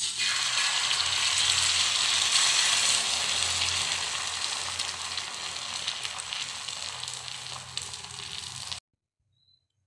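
Beaten egg with onion and green chili poured into hot oil in a frying pan, sizzling loudly as it hits. The sizzle slowly dies down, then cuts off suddenly near the end.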